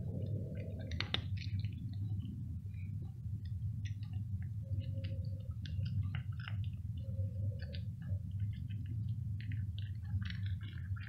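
Tabby cat crunching dry kibble: quick, irregular crisp crunches, one sharper crack about a second in, over a steady low hum.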